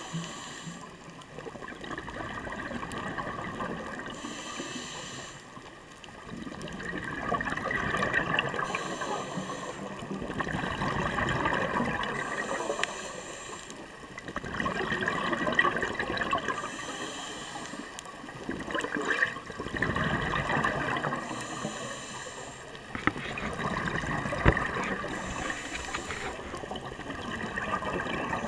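Scuba diver breathing through a regulator underwater: a short hiss on each inhale, then a longer stretch of bubbling on each exhale, repeating about every four to five seconds, roughly six breaths in all.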